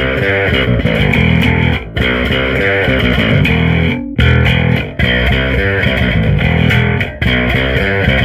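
Custom electric bass guitar with both pickups, humbucker and Precision, blended on, played with overdrive through a bass cabinet: a distorted riff repeated in phrases about two seconds long with short breaks between.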